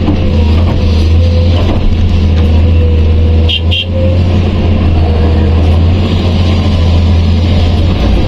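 Diesel engine of heavy construction machinery running steadily with a deep hum and a steady whine above it. A short double chirp comes about three and a half seconds in.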